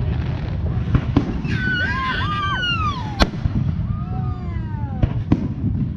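Fireworks display: a steady low rumble of explosions with sharp bangs about a second, three seconds and five seconds in. Two whistling tones fall in pitch in the middle.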